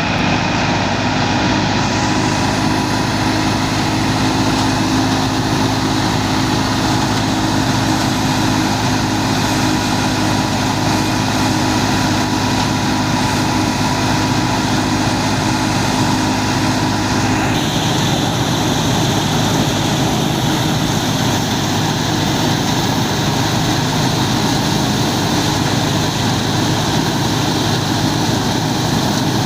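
Massey Ferguson 385 tractor's diesel engine running steadily, driving a wheat thresher, with the steady whir of the machinery. The pitch of the tones shifts abruptly about 17 seconds in.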